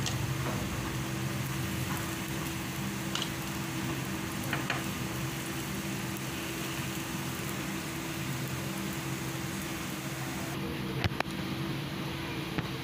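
Bread slices sizzling as they fry in butter-and-sugar caramel in a nonstick pan, with a few sharp taps of a wooden spatula against the pan. A steady low hum runs underneath.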